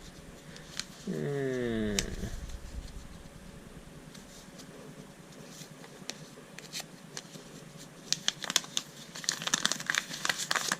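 Paper rustling and crinkling as a folded instruction leaflet is handled and unfolded, with scattered clicks of handling. The rustling grows busier near the end.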